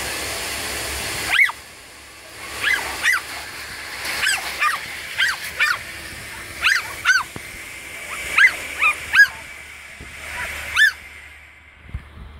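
A steady hiss cuts off about a second in, then a Staffordshire bull terrier gives a string of about a dozen short, high yelps, often in pairs.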